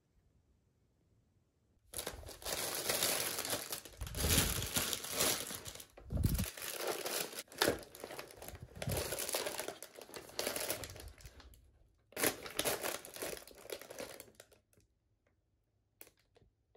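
Plastic packaging and a foil-lined insulated delivery bag crinkling and rustling as groceries are handled and taken out. It starts about two seconds in and goes on with short pauses, stopping a couple of seconds before the end.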